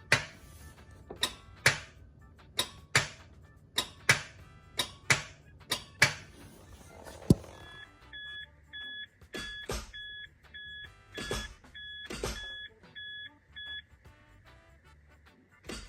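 MK3 Toyota Supra starter solenoid clicking sharply, in pairs about once a second, with no cranking: the click-no-start fault the owner traces to voltage drop in the starter relay circuit. After about eight seconds the clicks stop and a short electronic beep repeats several times a second for about six seconds, with a few dull knocks.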